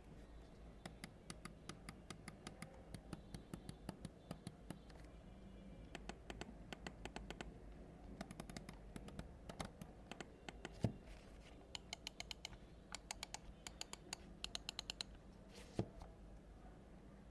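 Mchoose A7 Ultra gaming mouse buttons with Omron switches clicking close up, in runs of quick, crisp clicks with short pauses between the runs. Twice a single louder, deeper knock stands out among the clicks.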